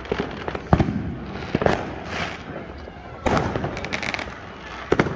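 Fireworks going off: about five sharp bangs at uneven intervals, the loudest under a second in, with a hiss between them.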